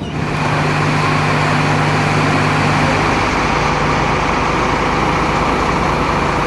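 Diesel coach engine idling: a steady low hum under broad engine noise.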